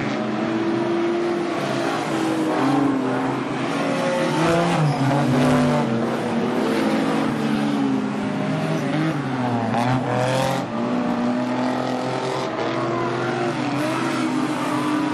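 Several speedway stock car engines running together, their pitch rising and falling as the cars change revs around the dirt oval.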